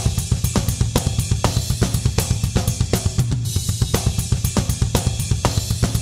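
A drum kit playing a steady, repeating beat on its own: kick drum, snare and cymbals with hi-hat.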